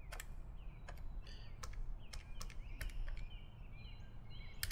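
Casio fx-83GT PLUS scientific calculator keys being pressed one after another: a series of soft, irregular clicks as a number is keyed in.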